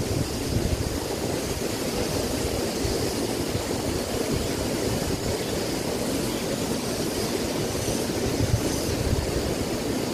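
Steady rush of a small river cascade, with low wind rumble on the microphone.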